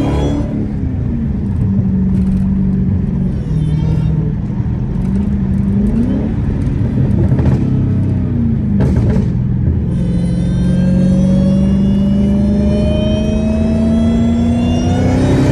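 Dodge Challenger SRT Hellcat's supercharged V8 heard from the driver's seat while driving. The engine note rises and falls a few times, then climbs in one long steady pull over the last few seconds, with a faint higher whine rising alongside it.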